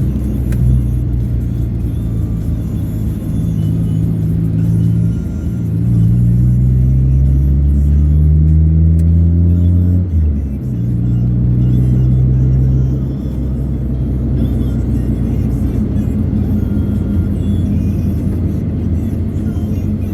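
Vehicle engine running under way. About five seconds in it pulls with a steadily rising pitch for about five seconds, then drops abruptly at a gear change and carries on steadily.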